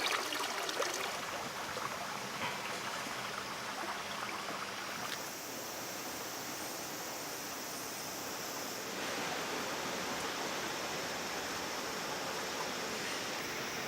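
Nachi Falls, a large waterfall, rushing steadily, its tone shifting abruptly about five seconds in and again about nine seconds in.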